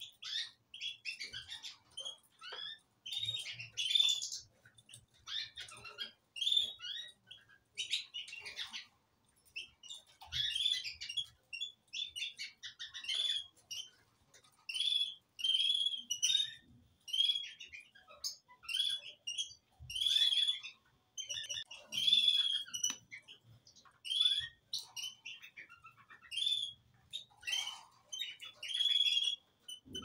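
Caged canaries and finches chirping and calling: short, high chirps coming in quick clusters with brief pauses between them.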